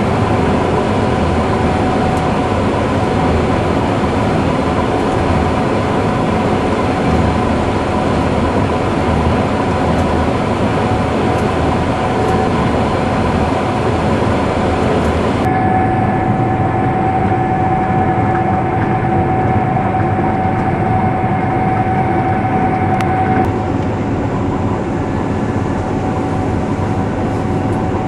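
Gleaner S77 combine running steadily under load while cutting wheat: a continuous heavy mechanical drone with a constant high whine. About halfway through, the sound turns duller for several seconds with the whine standing out, then returns to its earlier brightness.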